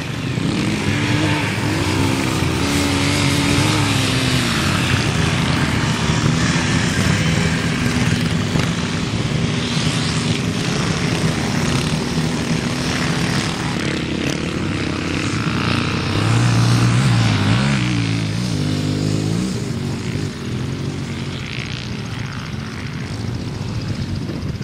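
Yamaha Ténéré enduro motorcycles riding on sand, engines revving up and down as the riders accelerate and ease off, with more than one bike heard at once. The revs peak loudest about two-thirds of the way in.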